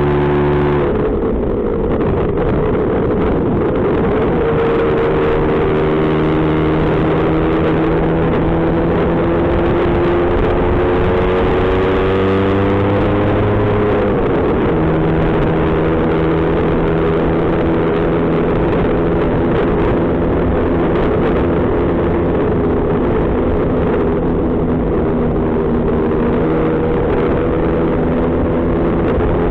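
Lambretta GP scooter's two-stroke engine running on the move, its pitch climbing slowly as it accelerates, then dropping sharply about halfway through at a gear change and holding steady, over a constant rush of wind and road noise.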